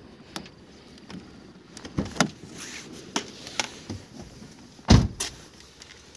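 A Suzuki car's door being opened and people climbing in, with clicks and knocks from the handle, latch and seat, then a door slammed shut about five seconds in, the loudest sound.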